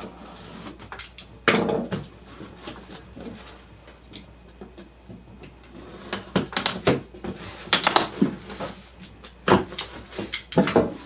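Cardboard box and its packaging being opened and handled: scraping, crinkling and rustling with sharp knocks, one louder knock about one and a half seconds in, and busier handling in the second half.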